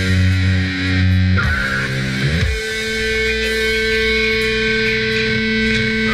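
Heavy metal music playing from a vinyl record on a turntable: a long held guitar chord that slides up into a new sustained chord about two and a half seconds in.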